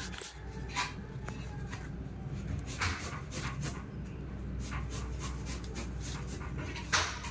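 Light scratching and clicking of small kittens' paws and claws shifting on a hard plastic pet carrier, over a low steady hum, with a sharper knock near the end.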